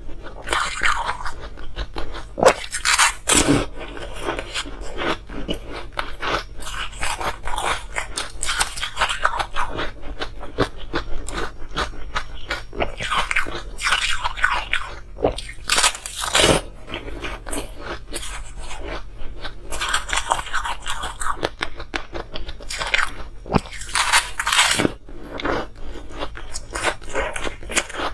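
A person biting off and chewing chunks of ice: a continuous run of sharp crunches, with the loudest bites about two and a half seconds in, around fifteen seconds and around twenty-four seconds.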